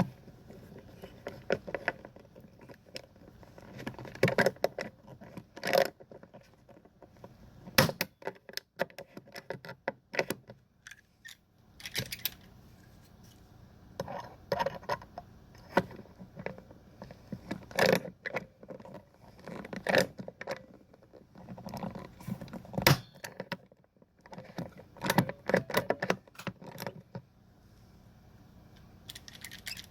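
Metal screws, fittings and hand tools clinking, clicking and scraping in irregular bursts as boat tie-down fittings are screwed back onto the hull.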